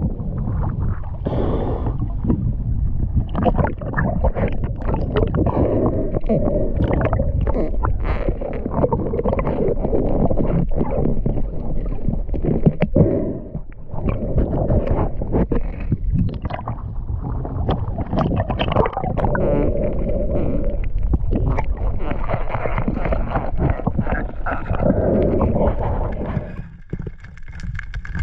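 Water gurgling and sloshing around a diving action camera moving at the surface and underwater, with many irregular clicks and knocks. The noise drops away briefly about halfway through and again near the end.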